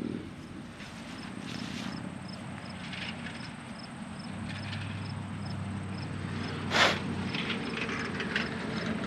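Digging out a metal-detector target in a field: soft scrapes and scuffs in the soil, with one sharper scrape about seven seconds in, over a steady low rumble.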